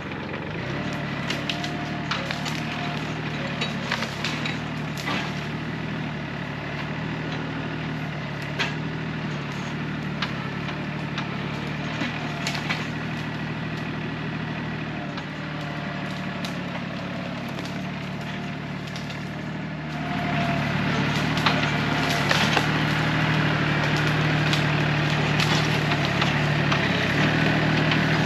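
Solis 26 compact tractor's diesel engine running under load as its front loader presses up against a split oak limb, with many sharp cracks and creaks from the straining wood. The engine gets louder about two-thirds of the way through.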